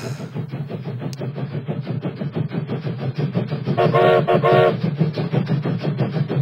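Model train running along the track with a steady hum and rapid, even clicking, and two short horn toots about four seconds in.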